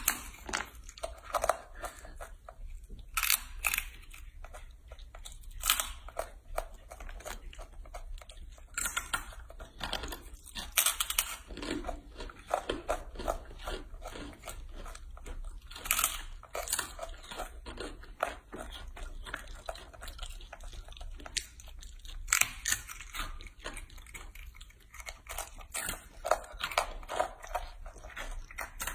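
Baby macaque biting and chewing crisp dried fruit and vegetable chips: irregular sharp crunches, close to the microphone.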